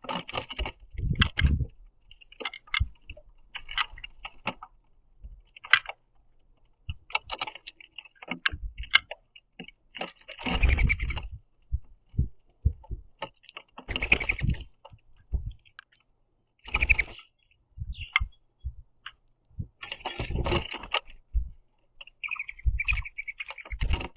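Birds pecking sunflower seeds on a wooden platform feeder: irregular sharp taps and clicks of beaks on wood and seed shells, broken by several louder rustling bursts of about a second each.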